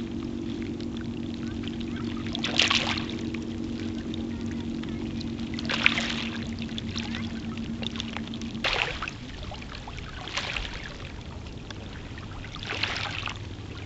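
Small lake waves lapping and washing against shoreline rocks, a wash every few seconds, over a steady low hum that stops suddenly about nine seconds in.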